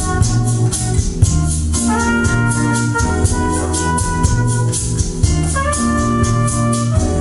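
Music played back over a home hi-fi system (Onkyo TX-NR616 receiver, Wharfedale Diamond 9.5 floorstanding speakers and Diamond SW-150 subwoofer): held organ-like chords that change every few seconds, over a heavy bass line and a quick, steady ticking beat.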